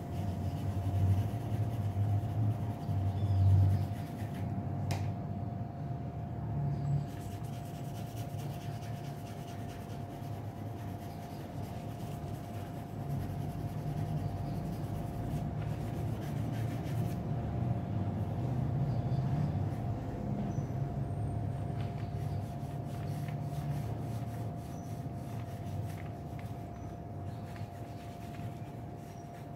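Graphite pencil rubbing and scratching on paper as a drawing is shaded. Underneath runs a steady low rumble, loudest in the first few seconds, and a constant thin high hum.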